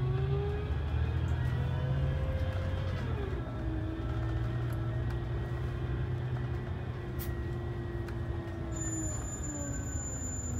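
Coach engine and drivetrain heard from inside the cabin: a steady low rumble with a whine that rises, drops sharply about three seconds in, then holds steady before falling away near the end.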